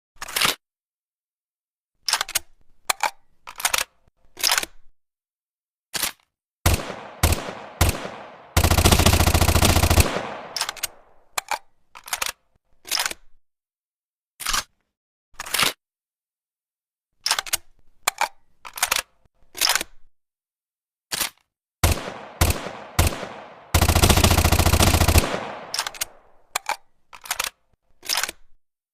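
Makeshift sound effect of a La Coruña M41/44 gun firing: scattered single sharp shots with gaps of silence between them, and two rapid bursts of automatic fire about a second and a half long, one around a third of the way in and one about four fifths of the way in.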